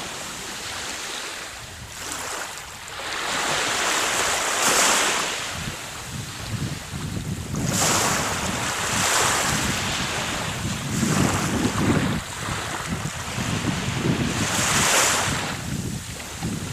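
Wind rushing and buffeting the microphone, mixed with sea surf, swelling and fading every two to three seconds.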